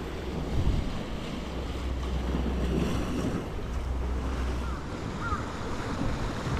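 Sea waves washing against rocks, with wind buffeting the microphone in a low, uneven rumble.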